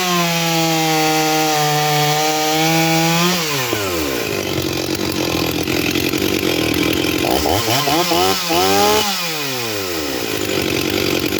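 Stihl 044 chainsaw's two-stroke engine held at high revs for about three seconds, then dropping to idle, then revved up twice near the end before settling back to idle. The owner takes it to be running too lean, on a summer tune.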